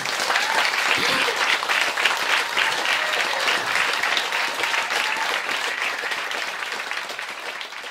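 Audience applauding steadily, dying down a little near the end.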